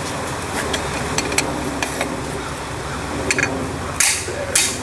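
A steady machine hum with a few light metallic clinks, then near the end two hard hand-hammer blows on a steel strip lying across an anvil, bending the strip.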